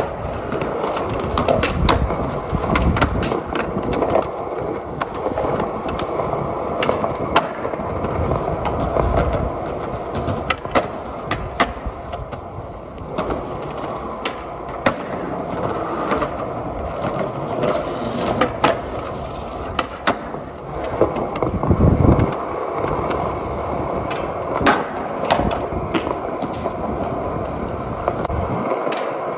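Skateboard wheels rolling on concrete, broken by many sharp clacks of the board popping and landing, the loudest about three quarters of the way through.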